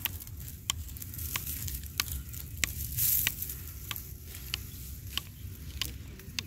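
Dry, ripe wheat stalks being cut by hand with a sickle: crisp crunching snaps at an even pace, about three strokes every two seconds.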